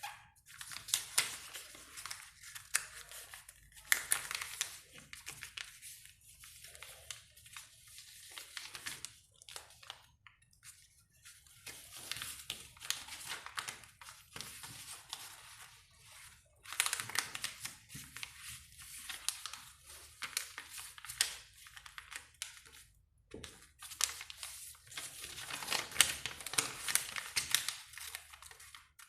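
A sheet of paper being folded and creased by hand. It rustles and crinkles in irregular bursts with short pauses between them, and there are sharp crackles as the folds are pressed.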